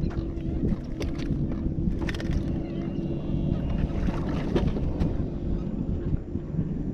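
A boat motor running steadily with a low hum, with a few scattered knocks and clicks over it.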